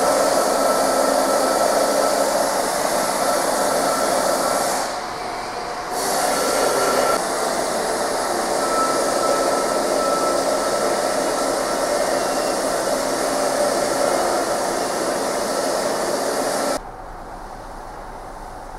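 Steady mechanical running noise with a faint high whine. It dips briefly about five seconds in, and gives way to a quieter steady background near the end.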